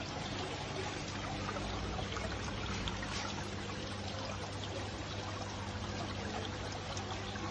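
Garden water features running: water pouring and trickling steadily into their basins, over a low steady hum.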